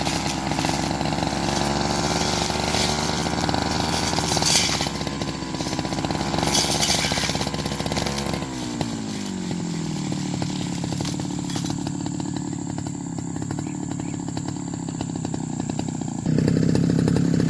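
Grass cutter's small petrol engine running fast, dropping back to a lower speed about halfway through, then revved up sharply again near the end.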